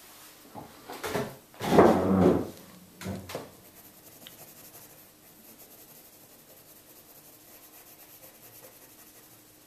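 A few loud rubbing, rustling sounds, the loudest about two seconds in, as the hand and arm come to rest on the paper; then quiet, steady scratching of a pencil shading on paper.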